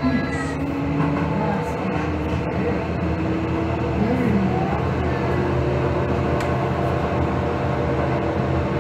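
Steady low electrical hum from a standing B100S light rail car, a 750 V DC car with a camshaft controller, with a few brief wavering tones over it.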